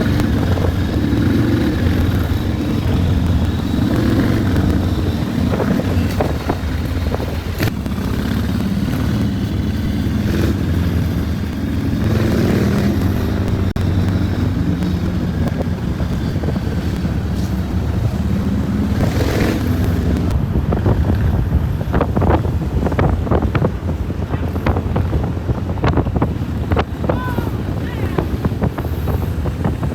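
Motorcycle engine running steadily while riding, with wind noise on the microphone. Short crackles and knocks come in the second half.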